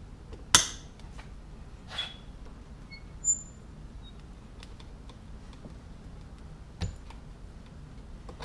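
Wire cutters or strippers trimming and stripping 12-gauge copper Romex wire: a loud sharp snap about half a second in, then a few quieter snips and clicks spread through the rest.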